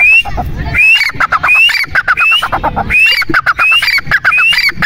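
Grey francolin calling loudly and repeatedly: a quick, rhythmic run of harsh notes, each phrase carrying a short rising squeal, coming again about once a second.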